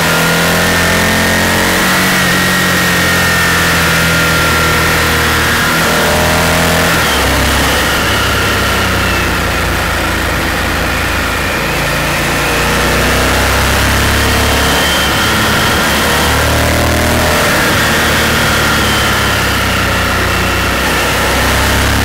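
Honda Varadero V-twin motorcycle engine pulling through a series of bends, its note rising and falling with the throttle, with a few step changes in pitch, over a steady rush of wind noise.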